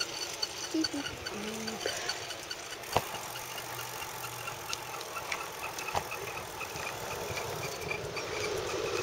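Bicycle rolling along a concrete sidewalk: steady tyre and rattle noise with a faint quick ticking, and a couple of sharp knocks as it goes over bumps, about three and six seconds in.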